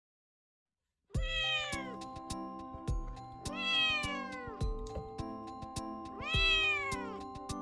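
A kitten meowing loudly three times, each call rising then falling in pitch, over background music with steady notes and a light beat, starting about a second in after silence.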